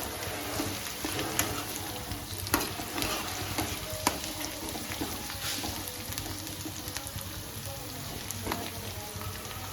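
Onion, green chilli, garlic and ginger sizzling as they fry in ghee in a pan, with a stirring utensil scraping and knocking against the pan a few times.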